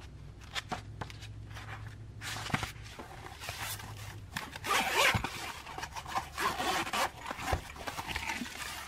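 A few light clicks and page rustles as a paperback manual is leafed through. About halfway in, the zipper of a soft-shell multimeter carrying case is pulled open around the case in a rasping run of several seconds, loudest near its start.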